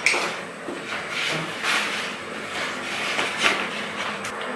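Soft knocks and rustles of kitchen things being handled, a wooden cutting board among them being picked up and carried.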